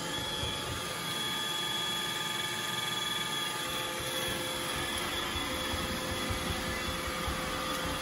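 iRobot Roomba 960 robot vacuum running while it drives across a hardwood floor: a steady whir from its suction motor and brushes, with a high whine held over it.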